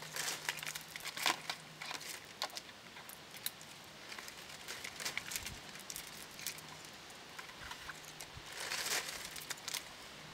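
A strand of incandescent Christmas lights being handled and wound around a palm trunk: the plastic wire and bulbs rustle, crinkle and click against each other and the trunk's wrapping, with a busier spell of rustling near the end.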